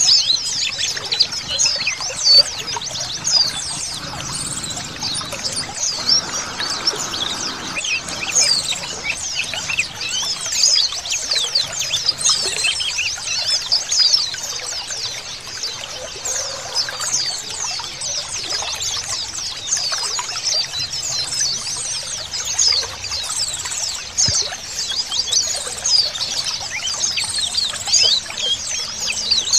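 Many white-eyes (pleci) chirping and twittering together in a dense, continuous stream of short high calls, over the sound of trickling water.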